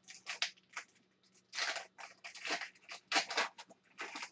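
Dry swishes and rustles of hockey trading cards and their pack wrappers being handled and slid against each other, a burst every half second or so.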